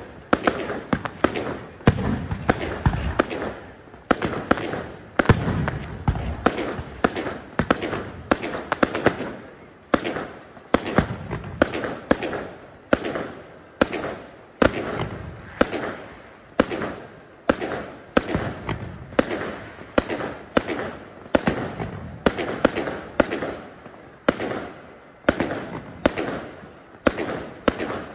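Aerial fireworks shells bursting in quick succession, sharp bangs about one a second, each fading away before the next.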